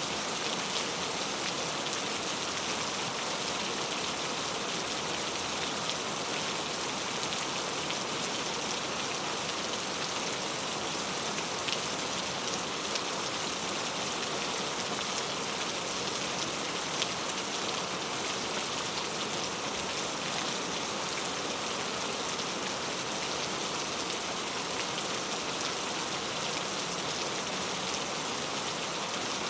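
Steady rain falling onto a puddle: an even hiss of drops, with a few sharper individual drop splashes scattered through it.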